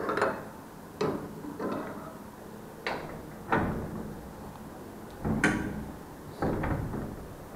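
A gate being shut and locked: a series of sharp clanks and knocks, about seven of them, the loudest a little over five seconds in.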